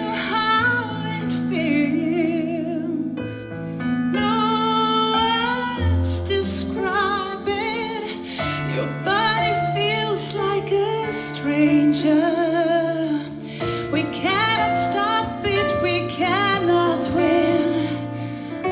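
Live performance of a slow ballad: a woman singing with vibrato over sustained low chords, the held bass notes changing every few seconds.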